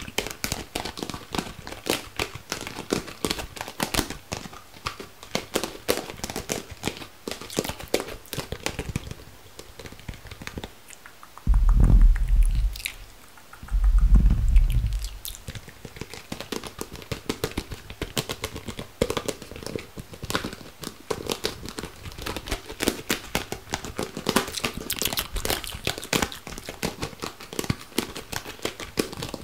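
Fast close-microphone ASMR triggers: dense, rapid crinkling and crackling clicks. Two short, loud, low rumbles on the microphone come about twelve and fourteen seconds in.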